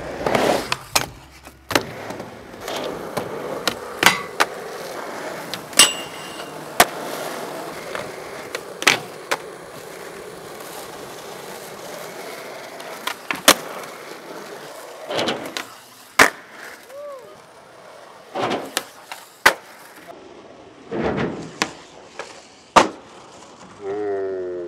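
Skateboard rolling on a smooth skatepark surface, with many sharp, irregular clacks of the board's tail and wheels hitting the ground as tricks are popped and landed.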